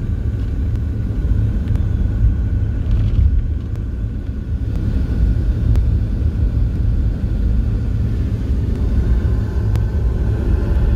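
Steady low road and engine rumble heard from inside the cabin of a moving vehicle, with a few faint clicks.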